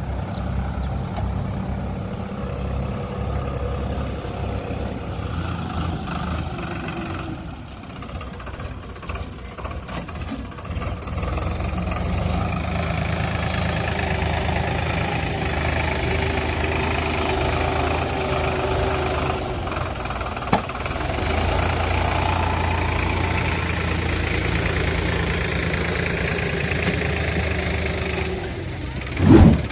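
Heavy diesel engine of farm or earthmoving machinery running, easing off for a few seconds about a quarter of the way in and then working harder. A short loud thump near the end.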